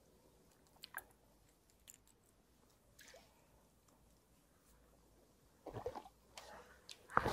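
Spinning rod and reel being handled while casting a lure: a few faint clicks, then a louder cluster of clicking and rustling about six seconds in, and a sharp click near the end.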